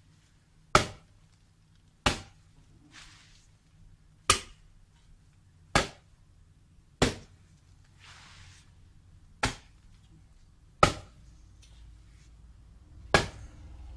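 Heavy hand tool chopping into wood and roots: eight sharp strikes, one every one to two and a half seconds.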